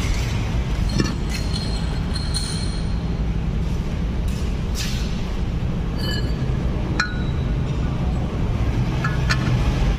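A few light metallic clinks as a cast-iron meat grinder body and its rusty threaded ring are handled, over a steady low rumble.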